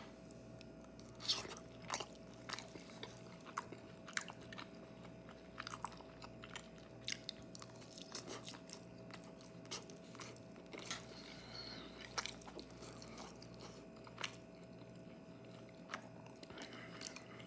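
A person chewing and biting into reheated Panda Express chicken, with short, irregular mouth clicks and soft crunches. A faint steady hum runs underneath.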